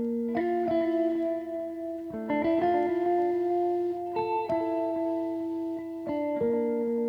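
Background music: guitar chords, each held for about two seconds before the next.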